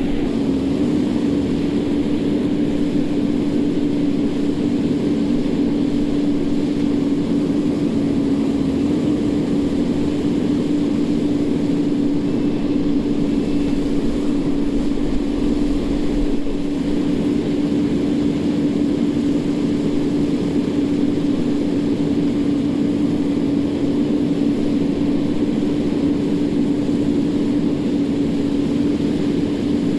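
An engine running steadily at constant speed, with a strong, even hum that barely changes pitch.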